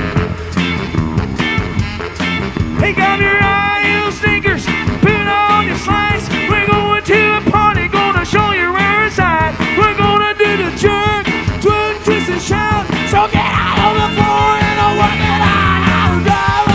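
A rockabilly band playing live: drums, electric guitar and saxophones, with a lead melody of bending, wavering notes over the band from about three seconds in.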